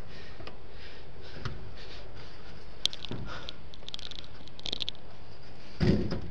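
A climber's hands and shoes knocking and scraping against the metal fins and rails of a glass tower facade, over a steady hiss: scattered sharp clicks, a quick run of small clicks and scrapes in the middle, and a heavier bump near the end.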